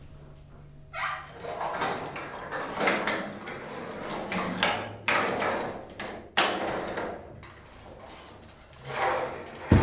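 Hanging meat carcasses being shoved along an overhead rail: a run of sliding, scraping swells, some starting suddenly, ending in a heavy low thud near the end.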